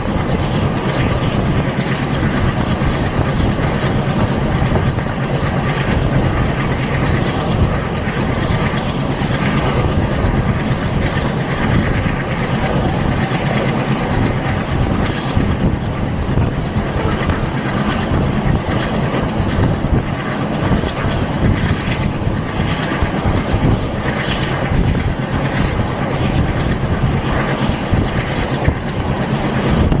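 Diesel-hauled passenger train running steadily at speed, heard from an open coach door: a loud, even rush of wind and wheel noise on the rails, with a low steady hum from the ALCo diesel locomotive's engine underneath.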